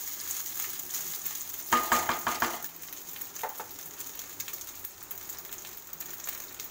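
Basmati rice frying and sizzling in oil and ghee in a kadai as it is stirred with a spatula. About two seconds in comes a short run of spatula knocks and scrapes against the pan, with one more knock a second later. After that the sizzle goes on more quietly.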